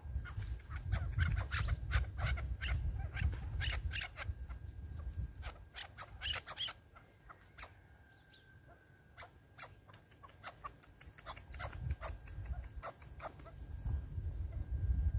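Caged chukar partridges calling: rapid runs of short, sharp notes that thin out in a quieter gap midway and then start up again, over a low wind rumble.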